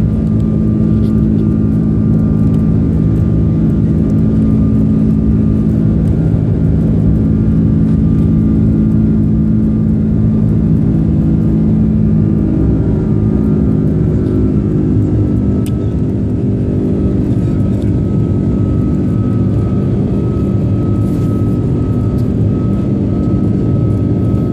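Rolls-Royce Trent 772B-60 turbofans of an Airbus A330-200 heard from inside the cabin during the climb after takeoff: a loud, steady jet drone with humming engine tones. About halfway through, the tones shift in pitch and the drone gets a little quieter.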